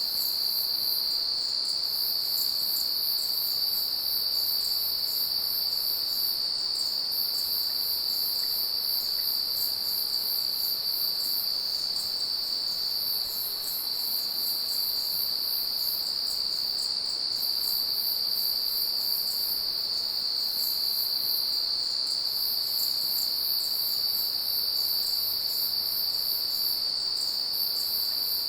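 Night insect chorus of crickets: one steady high-pitched trill that never breaks, and over it a still higher rapid chirping that comes in phrases of a few seconds with short pauses between them.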